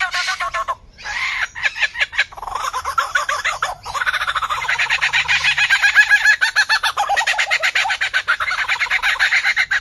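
A songbird singing a fast, varied song of rapidly repeated notes, many a second, in several long phrases with brief breaks about a second in and just before four seconds.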